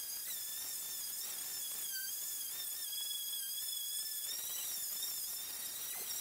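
Electric random orbital sander running on a wooden keel timber: a steady high whine with several overtones that wavers slightly in pitch.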